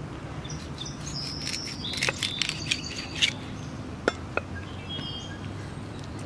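Small birds chirp in short high calls through the first half, while a kitchen knife knocks sharply on a wooden cutting board a few times as it cuts through a salmon into steaks.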